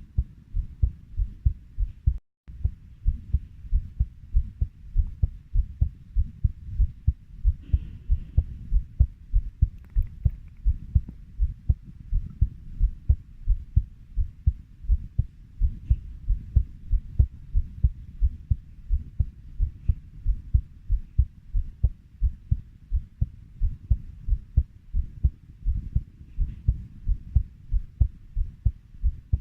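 Human heartbeat at about 90 beats per minute: a steady, even run of low lub-dub thumps. The sound cuts out for a moment about two seconds in.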